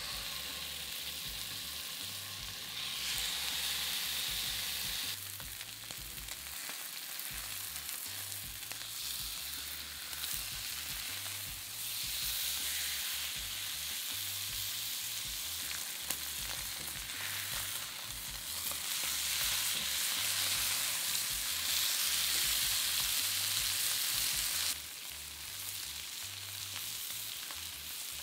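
Oiled, seasoned steaks searing in a very hot cast-iron pan: a loud, steady sizzle that starts suddenly as the meat goes in, then swells and eases in stretches.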